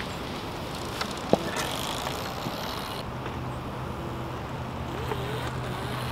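Whine of an OSET electric trials motorcycle's motor, wavering and growing louder near the end as the bike comes back under throttle, over a steady outdoor noise haze with a couple of sharp clicks about a second in.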